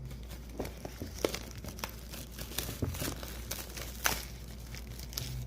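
Crinkling and tearing of smartphone packaging as the box is opened, with scattered small clicks and taps; the sharpest tap comes about four seconds in.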